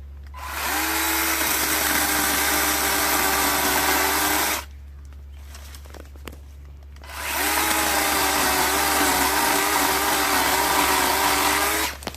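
Makita 18V cordless electric chainsaw running in two bursts of about four seconds each, with a short pause between. Each burst winds up quickly to a steady motor whine with a slight wavering in pitch.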